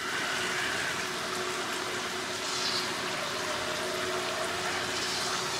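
A thin stream of water running steadily out of a white PVC pipe and splashing onto wet potting mix in a pot, fed by gravity from a water barrel.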